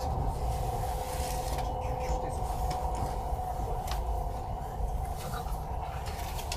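Cabin noise inside a CRH high-speed train car: a steady low rumble with a constant hum and scattered light knocks and clicks. One of the hum tones stops a little past halfway through.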